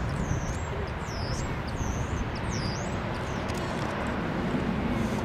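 Steady distant jet rumble of a Boeing 787 rolling out on the runway after landing, with a bird giving high, dipping whistled calls several times over it in the first few seconds.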